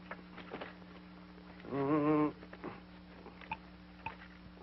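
A single short wavering vocal sound, a brief moan or whine, about two seconds in, over a steady low hum on the old film soundtrack, with a few faint clicks.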